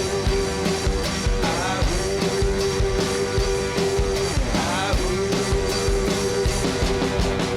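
Rock music with guitar and a steady beat, with held notes that bend up and down in pitch.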